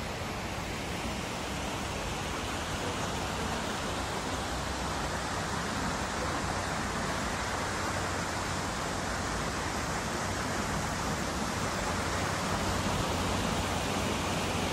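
Water running in a garden water feature's shallow channel and pool: a steady rushing hiss that grows gradually louder.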